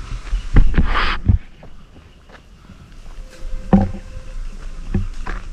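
Footsteps and irregular thumps of someone walking up a trail, over a low rumble on the microphone, with a brief rustle about a second in.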